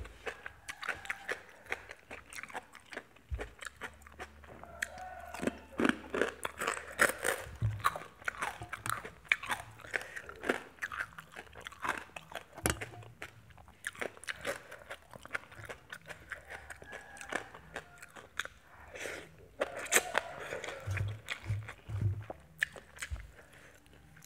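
A person eating close to the microphone: irregular crunching and chewing of crisp food, a meal of papaya salad with pork cracklings and fresh raw vegetables.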